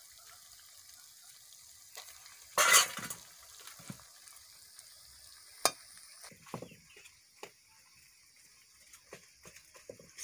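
Nut paste frying in oil with a faint steady sizzle in a metal kadai, stirred with a wooden spatula: scattered scrapes and knocks, a loud scraping clatter about two and a half seconds in and a sharp click a few seconds later.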